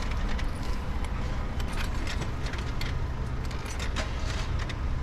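Steady low rumble of city traffic with scattered small clicks and clinks.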